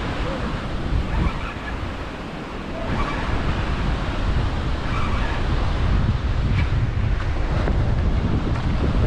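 Wind blowing across the microphone: a steady, low, noisy rush.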